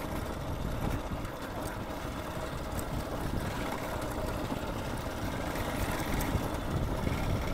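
Motorcycle engine running steadily with a low rumble during a ride.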